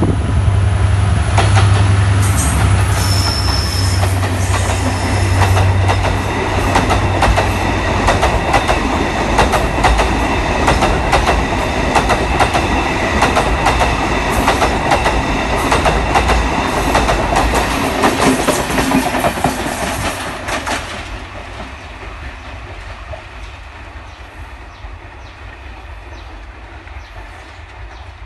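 Class M11 diesel locomotive running loudly as it passes close by. Its engine hum gives way after about five seconds to a long string of container wagons rolling past, with a steady clickety-clack of wheels over rail joints. The sound fades away over the last several seconds as the train draws off.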